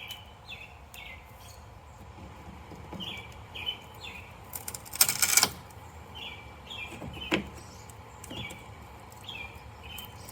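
Small bird chirping over and over, short notes in twos and threes. A few light knocks, and one louder brief noisy scrape about halfway through.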